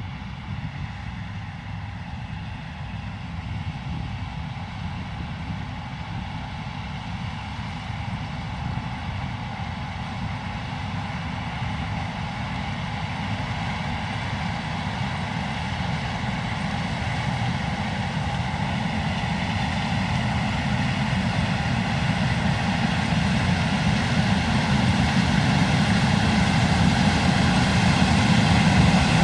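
John Deere S680 combine harvester running steadily while harvesting corn. It grows gradually louder as it comes closer.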